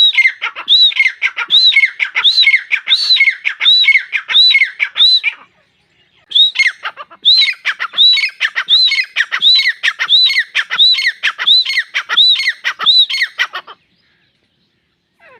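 Grey francolin (desi teetar) calling loudly: a run of shrill, repeated calls at about one and a half a second, a pause of about a second near the middle, then a second, longer run.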